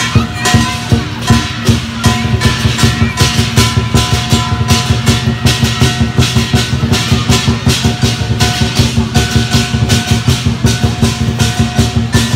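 Lion dance accompaniment: a large Chinese drum with crash cymbals and gong played in a fast, steady beat, the metal ringing on between strokes.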